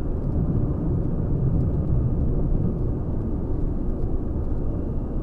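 Steady low rumble of a moving car's engine and tyres on the road, without any impact or sharp event.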